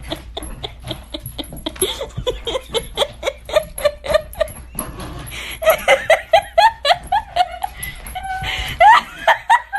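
Laughter in a rapid run of short repeated bursts, several a second, growing louder about halfway through.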